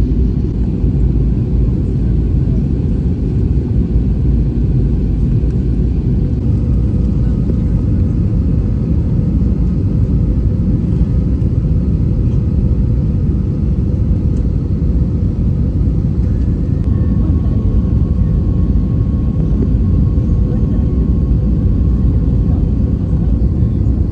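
Steady low rumble of engine and airflow noise inside an Airbus A320 cabin in flight.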